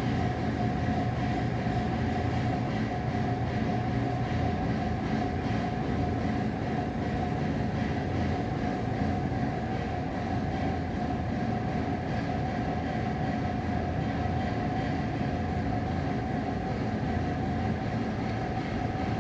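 Steady low mechanical rumble with a constant mid-pitched hum over it, with no distinct bangs.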